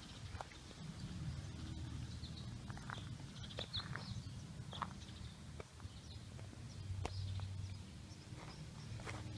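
Footsteps on dry dirt and debris, irregular crunching clicks over a low steady rumble, with a few short high chirps.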